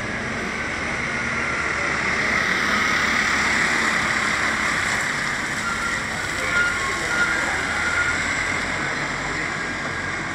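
Diesel bus engine running close by, under a steady hiss of yard noise.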